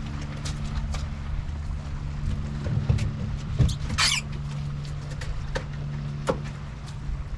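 A steady low motor hum, with scattered light knocks and clicks and a brief high squeak about four seconds in.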